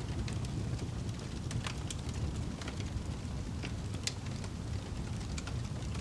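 Log fire in a fireplace crackling: irregular sharp pops, a couple a second, over a low steady rumble.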